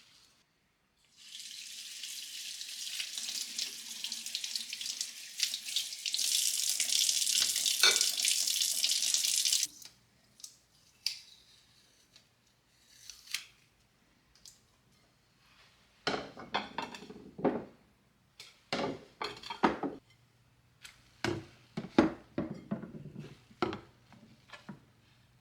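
A tap running into a sink for about nine seconds, turned up partway through, then shut off suddenly. It is followed by scattered light knocks and clatter of things being handled.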